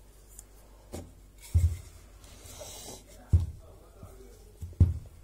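Wooden rolling pin pressed and knocked onto firm, fridge-chilled shortcrust pastry dough on a floured countertop: four dull thumps, with a short rubbing rustle between the second and third.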